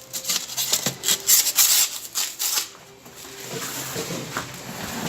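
Handling noise: a quick run of rustling scrapes and clicks for about two and a half seconds, then quieter, scattered light knocks.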